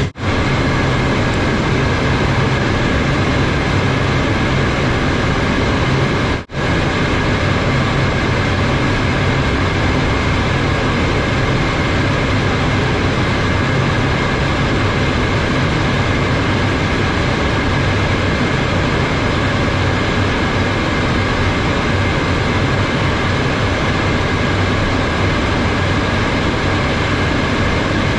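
Cockpit noise of a Cessna Citation M2 twin-turbofan jet on final approach: a steady rush of engine and airflow with a faint steady whine. The sound drops out for an instant about six seconds in.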